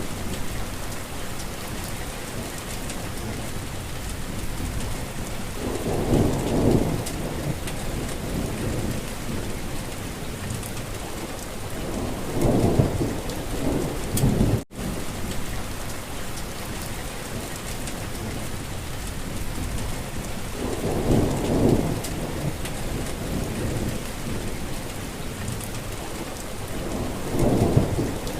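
Steady heavy rain hiss, with four low rumbling swells spaced through it. The sound cuts out for an instant about halfway through.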